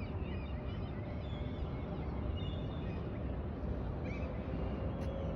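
Outdoor city ambience: a steady low rumble of distant traffic, with birds calling in short chirps during the first second and again around the middle. A faint steady hum comes in about four seconds in.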